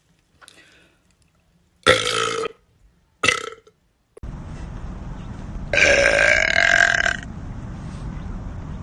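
A woman burping: two short, loud burps about two and three seconds in. Then a steady low background noise starts suddenly, and one longer, pitched burp lasts about a second and a half.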